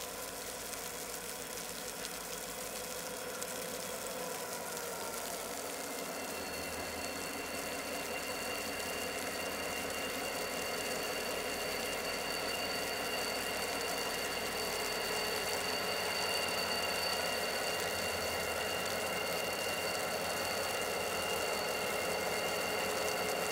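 Diesel freight locomotive approaching slowly, its engine running steadily and growing gradually louder. A steady high whine joins about six seconds in and holds.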